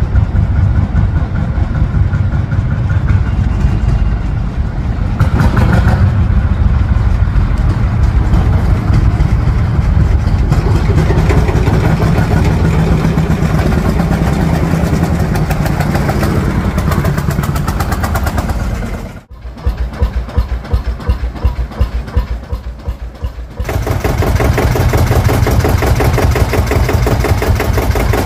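Lanz Bulldog tractors' single-cylinder two-stroke hot-bulb engines chugging with a steady, even beat as they drive past. The sound drops suddenly to a quieter stretch about two-thirds of the way through, then turns loud again.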